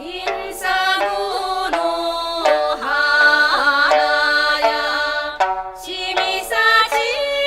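Background music: a melodic tune with held notes that waver in pitch.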